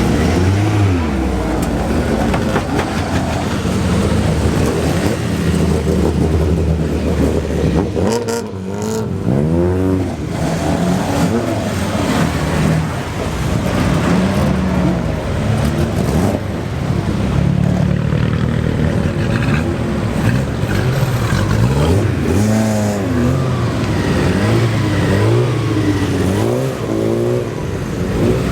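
Classic cars' engines running and accelerating, the pitch rising and falling as cars rev and pass, most clearly about a third of the way in and again twice near the end.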